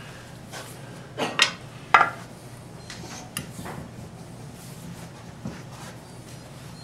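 Wood lathe running with a low steady hum while a bowl gouge is brought against the tool rest and the spinning blank. There are three sharp metallic clicks and scrapes about one to two seconds in, then a few lighter ticks.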